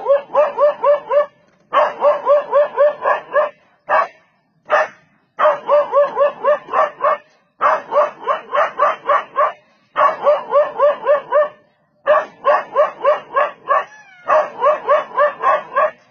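A dog barking at a leopard in rapid runs of about four barks a second. Each run lasts one to two seconds, with short pauses between runs and a couple of single barks in between.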